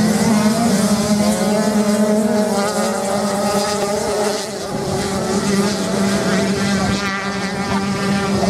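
Several small motocross bikes racing on beach sand, their engines revving up and down as they pass, the engine notes overlapping. A steady low drone runs underneath.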